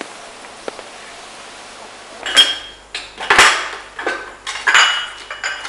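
China cups and saucers clinking: after a quiet stretch, a run of sharp clinks about two seconds in, several with a short high ring.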